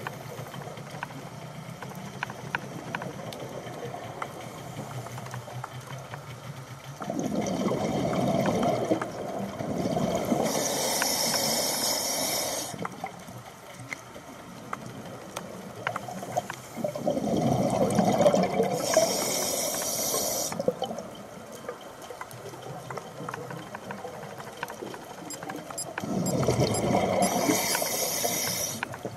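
A scuba diver breathing through a regulator underwater: three slow breaths about nine seconds apart, each a rough rumble of exhaled bubbles with a sharp hiss of air through the regulator, over a steady faint underwater hiss.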